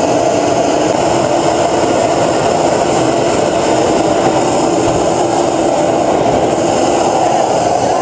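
1968 Howmet TX race car's TS325-1 gas turbine running steadily: a loud, even rush of noise with a high, steady whine over it.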